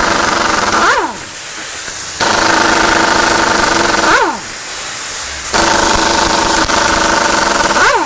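Air impact wrench running in three bursts of rapid hammering, each ending in a falling whine as it winds down. It is undoing the 15 mm bolts that hold the axle shaft flange to the rear hub of a Ram 4500/5500 truck.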